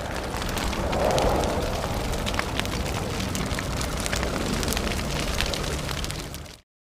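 Fire sound effect: a steady rush of flames with scattered crackles and pops, swelling about a second in and dying away quickly near the end.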